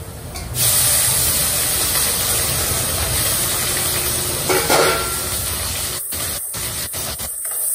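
Frying in a hot pan: a loud, steady sizzling hiss that jumps up about half a second in, as food goes into the oil.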